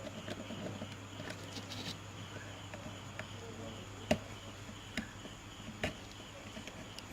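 Quiet bench-work sounds as old thermal paste is cleaned off a laptop CPU: faint scraping and three sharp clicks about a second apart in the middle. Under them runs a low steady hum and a steady insect-like chirring.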